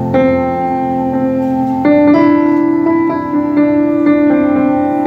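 Piano playing slow, sustained chords between sung lines of a live song, a new chord struck about every two seconds.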